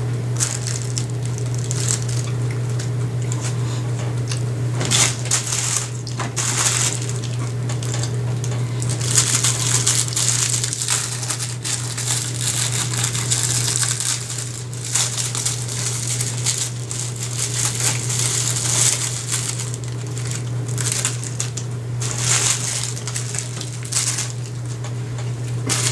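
Fast eating of soft frosted snack cakes: chewing and mouth noises with bursts of plastic wrapper crinkling, coming and going irregularly over a steady low hum.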